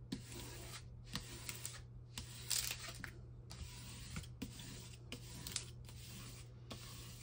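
Plastic scraper swept over the plastic film on a diamond painting canvas: faint, irregular scraping strokes with a few small squeaks as trapped air is pushed out from under the film.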